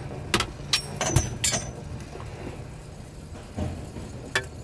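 Several short knocks and clicks inside a vehicle cab, bunched in the first second and a half and then twice more near the end, over a steady low hum.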